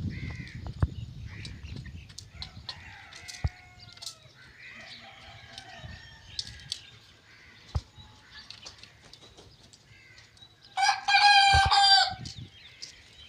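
Hens clucking softly, with a few sharp taps among the calls, then a rooster crowing loudly once for just over a second near the end.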